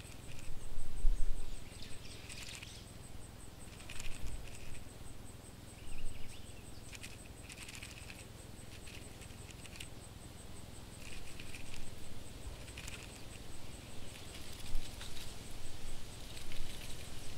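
Scuttling sound effect for a cockroach: irregular bursts of scratchy, pattering clicks, with a louder low knock about a second in and a faint steady high-pitched tone underneath.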